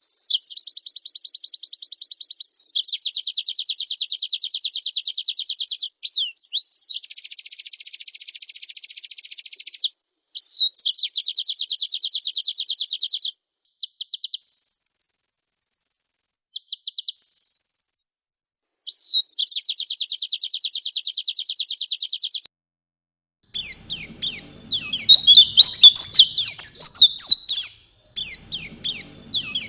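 White-eye (pleci) birdsong: a run of rapid, evenly pulsed trilled phrases with short silent gaps between them, then, a little past twenty seconds in, a louder, varied, fast twittering song.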